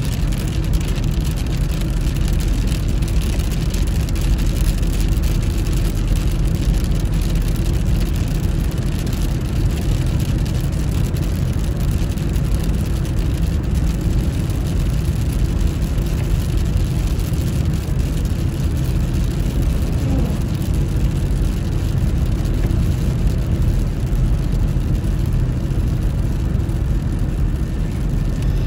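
Steady road noise of a car driving on a wet road, heard from inside the cabin: a continuous low rumble with tyre hiss.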